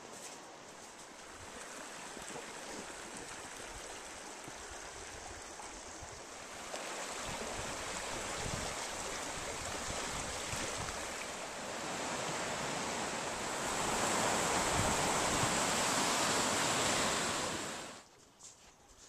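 Rushing creek water, a steady hiss that grows louder in steps and then cuts off abruptly near the end.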